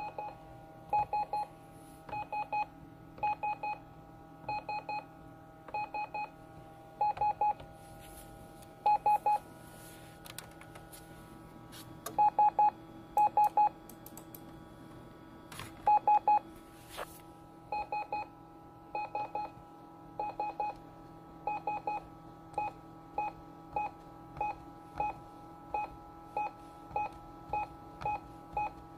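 Electronic beeping over a faint steady hum: short, high beeps come in quick clusters of three or four about every second and a half, then change near the end to single beeps about two-thirds of a second apart.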